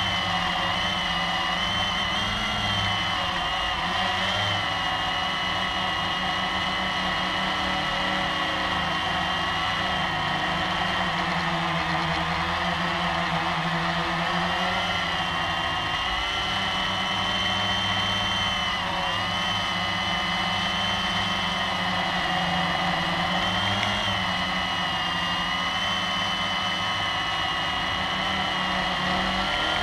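Blade 350QX quadcopter's four electric motors and propellers whining steadily, heard up close from the onboard camera. The pitch wavers up and down every few seconds as the motors speed up and slow down to hold and steer the flight.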